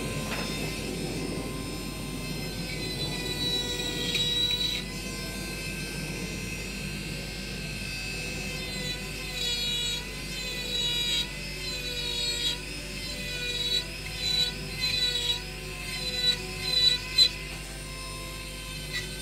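Rotary carving tool fitted with a small tungsten carbide ball burr, whining at high speed, its pitch dipping and wavering as the burr cuts into the wood. From about halfway in come short, louder bursts as the burr bites harder.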